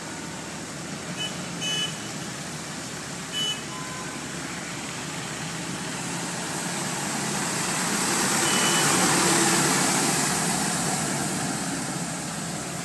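Road sweeper truck driving past on a wet street, its engine running and brushes scrubbing the road, with a steady noisy rush that swells to its loudest about nine seconds in as it passes close. A few short high beeps sound in the first few seconds.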